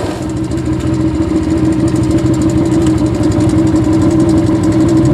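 Honda ATC250SX three-wheeler's single-cylinder four-stroke engine running at a steady speed, with an even drone.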